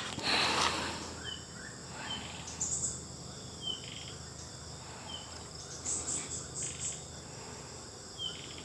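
Insects chirping: a steady high hiss, short high chirps every second or so, and a couple of brief rapid trills. A plastic bottle is lifted off a plastic tray and handled during the first second.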